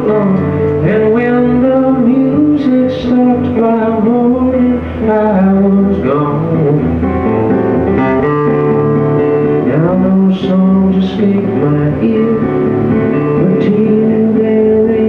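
Live country band playing a mid-tempo song: strummed acoustic guitar, electric guitar, pedal steel and drums.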